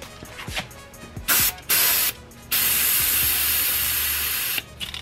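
Aerosol spray can hissing: two short bursts, then one long spray of about two seconds.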